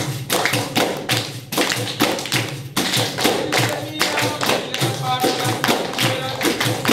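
Capoeira music: hand percussion keeping a steady beat of about three low strikes a second, with voices singing from about halfway through.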